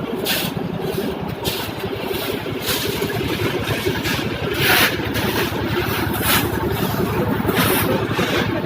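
An engine running steadily with a fast, even chugging, with short hissing or scraping bursts over it every second or two.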